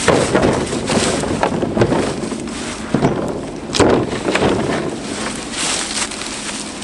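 Oak firewood rounds knocking into the bed of a Polaris Ranger utility vehicle as they are loaded, with a few sharp knocks, the clearest around three and four seconds in. Wind buffets the microphone throughout.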